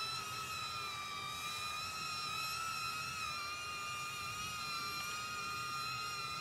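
DJI Neo mini drone hovering, its propellers giving a steady high whine that wavers slightly in pitch. The operator says the drone is acting odd.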